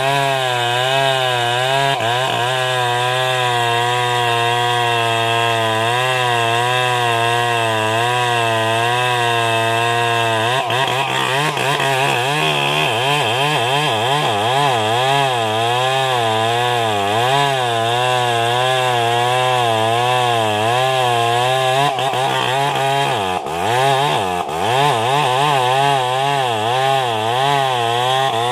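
Large two-stroke chainsaw running hard while cutting into a buttressed merbau trunk, its engine note wavering up and down as the bar loads in the cut. About five seconds before the end the engine speed dips sharply twice, bogging under load, then picks back up.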